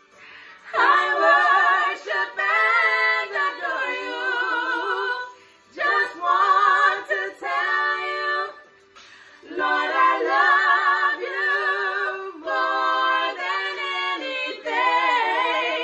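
Three women singing a worship song a cappella in harmony, with vibrato on held notes, in phrases separated by two short breaths of near quiet.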